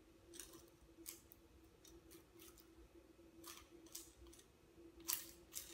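Faint scattered clicks and scrapes of small computer parts and screws being handled during assembly, about nine, the loudest near the end, over a steady faint hum.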